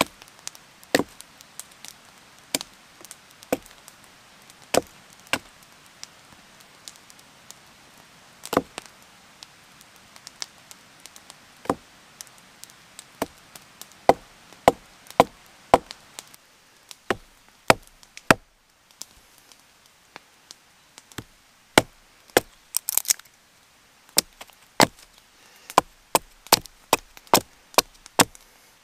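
Hatchet splitting a short block of wood against a log: a string of sharp, dry wooden knocks, about one a second at first, coming faster and louder in the second half, at times several a second.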